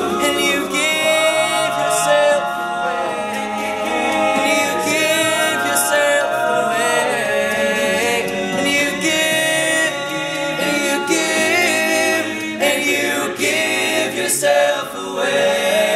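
Male a cappella group singing in close harmony, voices only: a lead voice over sustained backing harmonies from the rest of the group.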